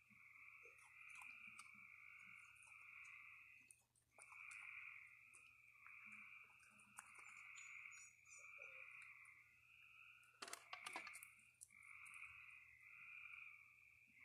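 Faint night chorus of frogs, pulsing calls repeating about once or twice a second without pause. Over it come scattered clicks and rustles from a raccoon picking through dry food on a wooden table, with a short cluster of louder clicks about ten and a half seconds in.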